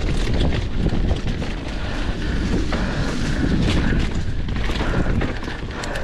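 Mountain bike riding fast down a rough trail: wind buffeting the microphone and tyres rumbling over dirt and rock, with frequent sharp clicks and clatters from the bike.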